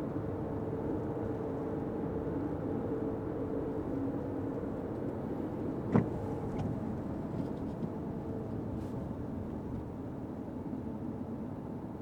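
Steady road and engine noise of a Fiat 500X being driven, with a low hum that fades away. One sharp knock sounds about halfway through.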